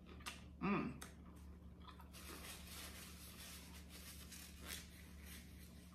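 Faint crackly tearing as a piece of fried seafood is pulled apart by hand, running for about four seconds. Just before it, about a second in, a short hummed 'mm' from the eater.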